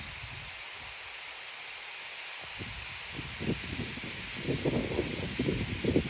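Thousands of starlings chattering together at their roost on the ground, a dense and steady high hiss. From about halfway through, gusts of storm wind buffet the microphone with a low, uneven rumble.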